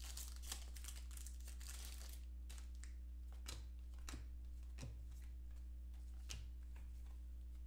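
Foil trading-card pack wrapper crinkling in the hands for about the first two seconds, then a few short flicks and slides of cards being sorted through, over a steady low hum.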